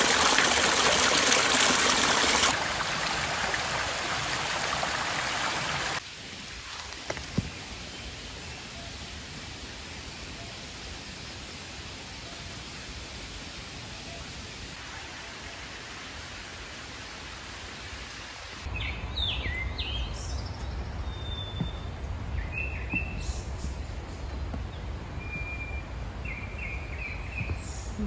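A small spring trickle pouring over mossy rocks into a shallow pool, splashing steadily and loudly for the first couple of seconds. After that comes a quieter steady forest hush. In the last third, short bird chirps sound over a low rumble.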